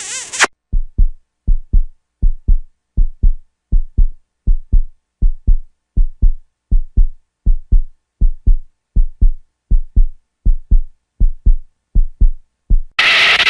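Heartbeat sound effect: a steady lub-dub of paired low thumps, a little more than one beat a second. A louder, fuller clip cuts in near the end.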